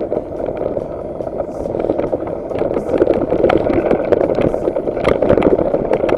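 Wind buffeting the microphone and tyres rumbling over a dirt trail as a mountain bike speeds downhill, with frequent sharp knocks and rattles as it hits bumps.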